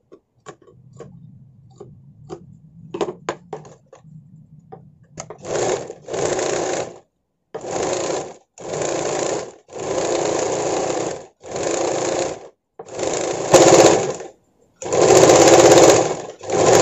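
Electric sewing machine stitching a seam in fabric, running in about eight short runs of roughly a second each with brief pauses between them, starting about five seconds in. A few light clicks come before the machine starts.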